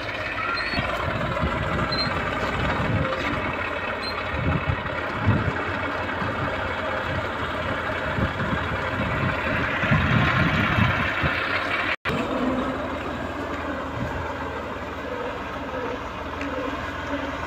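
Tractor engine running steadily as it pulls a tractor-mounted boom sprayer, with a steady hiss over it. The sound drops out for an instant about twelve seconds in.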